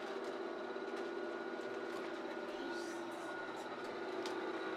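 Built-in blower fan of an airblown inflatable running steadily as it inflates the nylon figure, a continuous hum with a faint whine, with a few soft rustles of the fabric.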